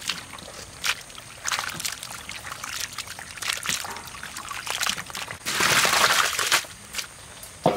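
Water being poured and sloshed, with a few sharp knocks in between; the loudest pour comes about five and a half seconds in and lasts about a second.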